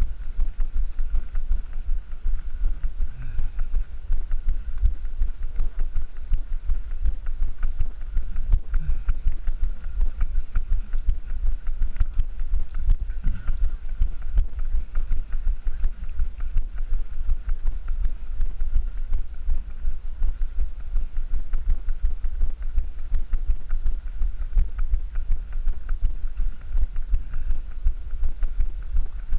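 Steady rhythmic thudding of a runner's footfalls carried through a body-worn camera, with wind buffeting the microphone.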